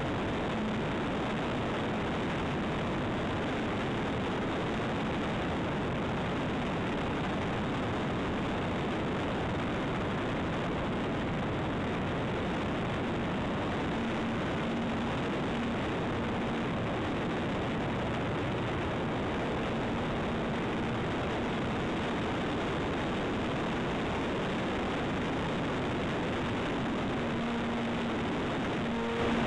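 Steady rushing noise of wind and spinning propeller picked up by a camera riding on a flying radio-controlled Zivko Edge 540 model plane, with a faint low motor hum that comes and goes.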